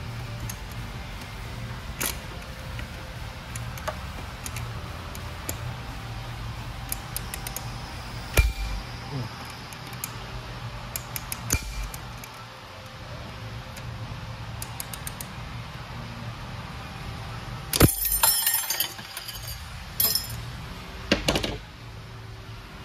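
Metal-on-metal clicks and clinks from large snap-ring pliers working a snap ring inside an Eaton Fuller 10-speed transmission case, with a short burst of clattering metal about eighteen seconds in and a few sharp knocks shortly after, over a steady low hum.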